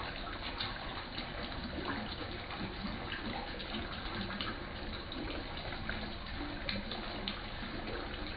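Steady flow of water splashing into a fish pond, with frequent small splashes and ticks at the surface.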